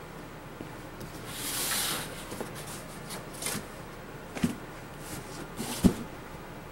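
Handling noise from a long cardboard shipping box: a brief scraping rub about a second and a half in, then a few short knocks, the sharpest near six seconds.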